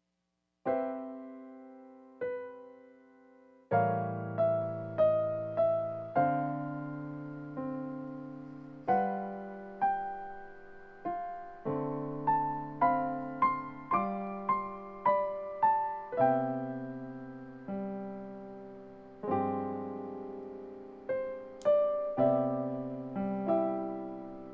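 Background solo piano music: a gentle melody of struck notes and chords over bass notes, each note dying away slowly. It begins after a moment of silence, a little under a second in.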